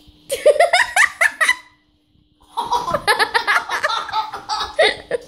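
A man and boys laughing, in two stretches with a break of about a second between them.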